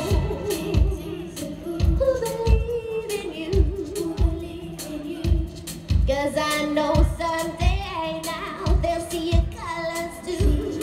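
Live pop band with a female lead vocalist singing, over a steady kick-drum beat, played through a concert PA system.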